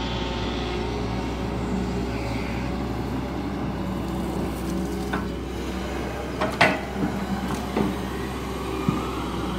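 Diesel engine of a SANY long-reach hydraulic excavator running steadily as the machine works its boom down into a well pit, with a few sharp knocks about five to eight seconds in.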